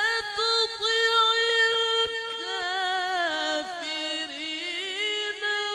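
A man's solo Quran recitation in the melodic tilawah style, sung loud into a microphone: one long, high held note with small ornamental turns, then a drop to a lower pitch that wavers through melismatic runs in the second half.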